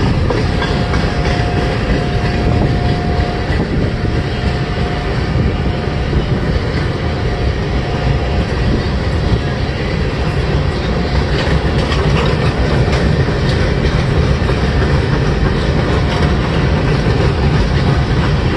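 A freight train's boxcars and refrigerator cars rolling past at speed: a steady heavy rumble with the clack of wheels over rail joints and a faint thin whine that comes and goes.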